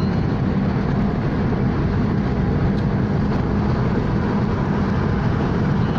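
Steady road noise inside a moving car cruising on a highway: a low engine hum under the rush of tyres on the road surface.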